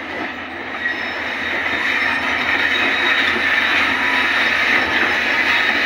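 JCB tracked excavator running and working, its engine and hydraulics driving the arm and bucket among loose rock. The noise grows louder over the first two seconds, then holds steady.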